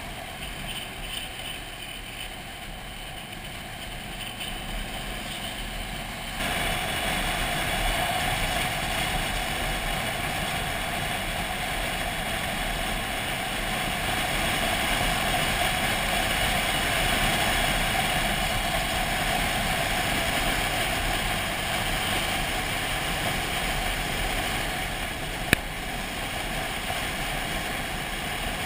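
Motorcycle on the move, heard from a camera mounted on the bike: a steady rush of wind and engine noise that gets louder about six seconds in, with a single sharp click near the end.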